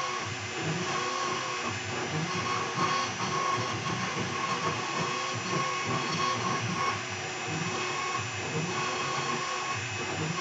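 CNC router V-carving: the 2.2 kW air-cooled spindle runs steadily under a hiss, while the gantry's stepper motors drive the carving moves, a whine that comes and goes in short pulses.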